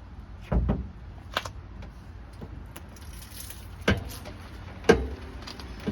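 Driver's side rear wheel and suspension of a car giving short creaks and clunks, four in all, as the car is rocked forward and back by hand in neutral. The creak is the fault being chased in the rear suspension.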